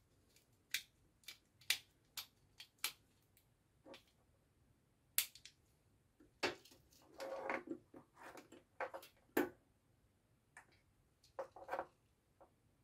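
Faint scattered sharp clicks and plastic rattles from a plastic 11-pin relay socket and screwdriver being handled as wires are fastened into the socket's screw terminals, with a short burst of rattling about seven seconds in.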